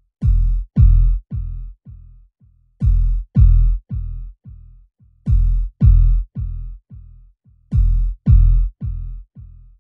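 Synthesized electronic sound effect: a deep thump with a falling pitch and a bright, chime-like ring, repeated in a quickly fading echo train of five or six hits. The whole pattern starts again about every two and a half seconds, four times over.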